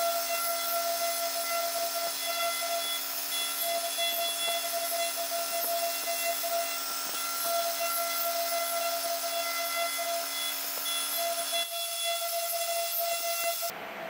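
2.2 kW spindle of a CNC router running at high speed while its fine engraving bit carves copper alloy: a steady high whine of several tones over a hiss. A lower hum drops out about twelve seconds in, and the sound changes just before the end.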